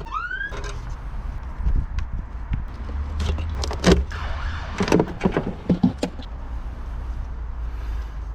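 Hands working on a car: a short rising squeak at the start, then a run of sharp metal clicks and knocks a few seconds in, over a steady low rumble.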